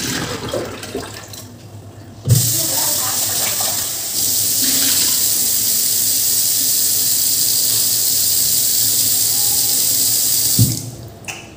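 Rice water poured from a clay pot into a stainless steel sink, then the tap is turned on: water runs hard into the clay pot and the sink for about eight seconds before it shuts off abruptly. The pot is being rinsed clean after a rice-water seasoning.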